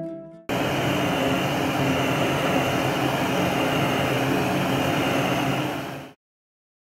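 Handheld gas blowtorch burning with a steady hiss as its flame plays on a steel wrench. It starts about half a second in and cuts off abruptly about six seconds in.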